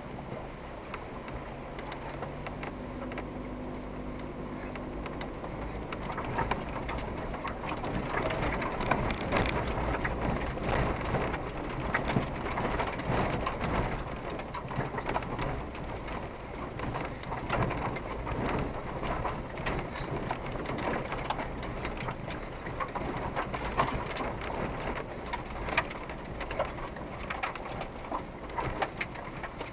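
Cabin sound of an off-road SUV crawling over a rough, stony dirt track. A low engine hum is clearest near the start. Over it runs a dense crackle and rattle of tyres on stones and the body jolting, which grows louder a few seconds in.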